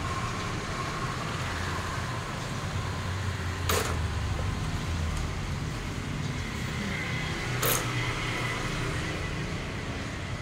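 A steady low rumble, like distant road traffic, with two sharp clicks about four seconds apart.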